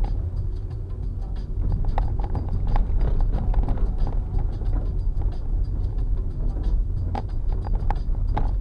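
Honda Insight driving through unplowed snow, heard from inside: a steady low rumble with many irregular knocks and clicks as the car pushes through the snow.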